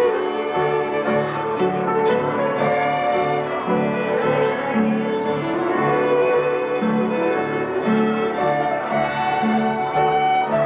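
Fiddle playing a tune, backed by guitar accompaniment with a steady low note pattern that changes about twice a second.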